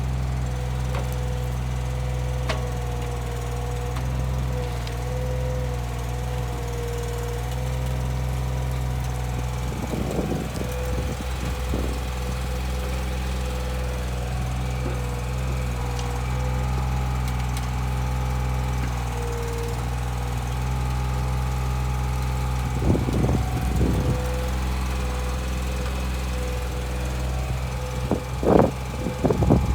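Komatsu PC15-3 mini excavator's diesel engine running steadily during a digging test. A few short, louder noisy bursts come through: about a third of the way in, around two-thirds through and near the end.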